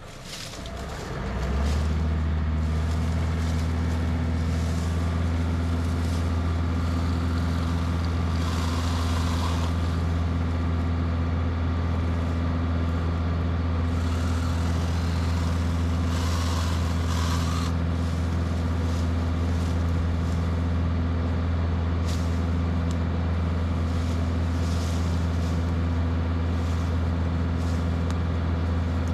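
John Deere 2038R compact tractor's three-cylinder diesel engine at high throttle, driving a Frontier 3-point PTO wood chipper. It comes up to speed over the first couple of seconds and then holds a steady low drone. Twice there are brief, higher, rasping cuts from a small cordless electric chainsaw, about nine and sixteen seconds in.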